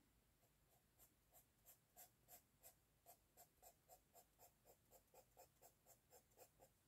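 Faint scratching of a felt-tip pen on sketchbook paper, colouring in with quick, even hatching strokes, about three or four a second, starting about a second in.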